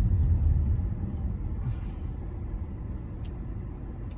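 Low rumble of a car heard from inside the cabin as it slows behind stopped traffic. It fades over the first second and settles into a steady, quieter drone, with a brief high hiss about two seconds in.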